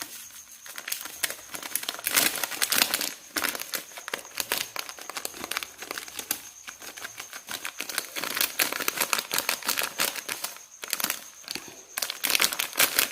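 Plastic packet of grated coconut crinkling and rustling in the hands as the last of the coconut is shaken out, in irregular crackles.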